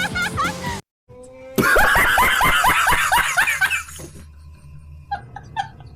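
Laughing sound effects: a loud run of rapid, rhythmic "ha-ha-ha" laughter, each syllable falling in pitch, starts about one and a half seconds in and lasts about two seconds, followed by a quieter string of short snickering bursts near the end. It opens with the tail of a previous clip of swooping pitched tones, cut off by a brief silence.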